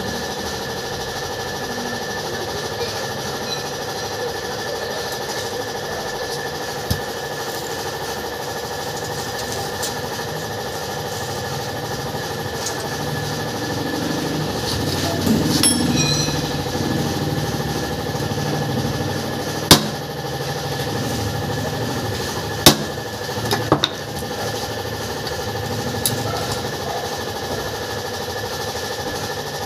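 A few sharp metal knocks, single and seconds apart with the loudest about two-thirds of the way in, from hammering a dented motorcycle wheel rim straight, over a steady motor hum.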